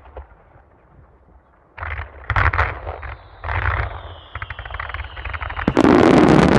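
Aerial fireworks: a sharp bang at the start, then from about two seconds in a run of launches and crackling bursts with a whistle that falls slowly in pitch, and near the end a loud, dense volley of shell bursts.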